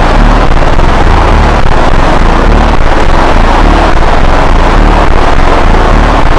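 Fan-made EAS-style emergency alarm played heavily distorted and clipped ('mega loud'): a constant harsh blare with low tones that change in steps.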